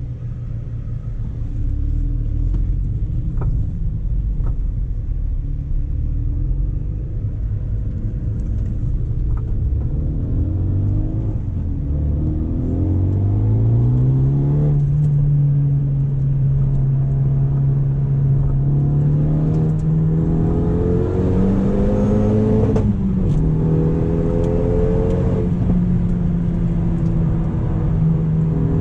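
Renault Megane RS turbocharged four-cylinder through an Akrapovič exhaust, on the move. It starts as a low rumble, then the engine note rises as the car accelerates, holds steady for a few seconds, rises again, and drops at a gear change near the end before settling into a steady pull.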